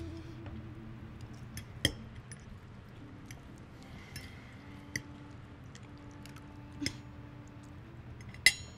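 Cutlery clinking against plates and glassware, with eating and chewing sounds at a dining table. There are a few sharp clinks spread through, and the loudest comes near the end.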